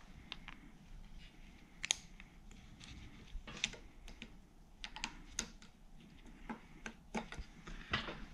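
Scattered light, irregular clicks and taps of metal on metal as a U-joint retaining clip is pressed into its groove in the driveshaft yoke and the joint is handled.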